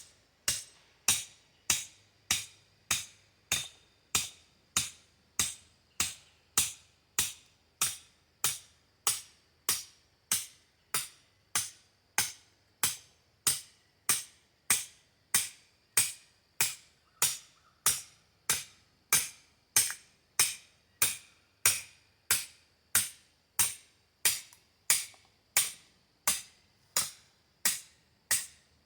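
A hatchet being batoned by striking its spine with the back of a sword blade: a steady run of metal-on-metal strikes, a little under two a second, each with a short high ring.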